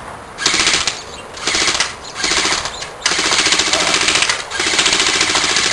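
Automatic airsoft guns firing full-auto in about five rapid rattling bursts, each lasting from half a second to over a second, with short pauses between them.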